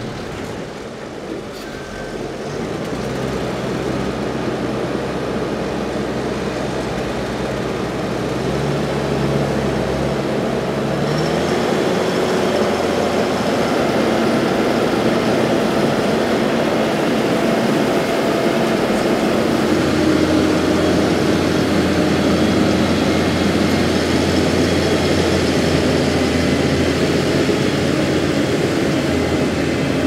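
Fendt 818 Vario tractor engine running steadily while its Krone MX 350 GD loader wagon unloads chopped maize silage onto the clamp. The machinery sound shifts and gets louder about eleven seconds in.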